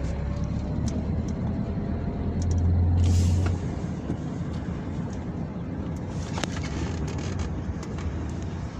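Engine and road noise of a moving vehicle heard from inside the cabin: a steady low rumble with a faint whine rising slowly in pitch over the first couple of seconds. About three seconds in, the rumble swells briefly with a short hiss, and a few small clicks and rattles sound throughout.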